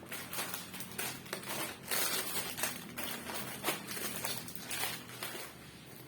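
Irregular rustling and crinkling handling noises, heaviest about two seconds in and again near five seconds, over a faint steady low hum.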